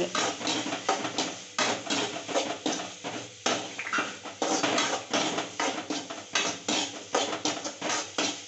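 A spoon scraping and clinking against a metal kadai as diced potatoes frying in oil with spice powders are stirred, in quick repeated strokes, about three a second.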